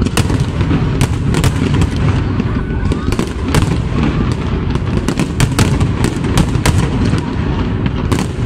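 Aerial fireworks display: shells bursting overhead in a quick, irregular string of sharp bangs over a continuous low rumble.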